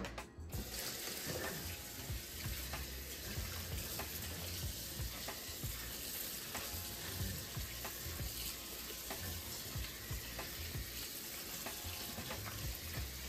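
Warm water running steadily into a bowl to wash dried fish, starting abruptly about half a second in.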